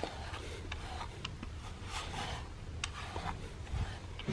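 A slicker brush's wire bristles stroking through a cat's fur, a soft rasping swish repeated about once a second, with a few light ticks between strokes.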